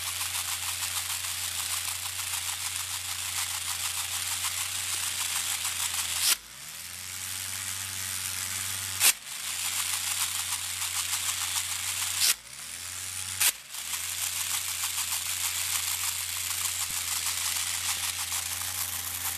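Small DC electric motor running a homemade two-speed plastic-gear transmission, a steady hum with a dense whirring gear rattle. Twice, around 6 and 12 seconds in, the sound drops and then spins back up. Sharp clicks come near 9 and 13.5 seconds, as the transmission is shifted between first and second gear.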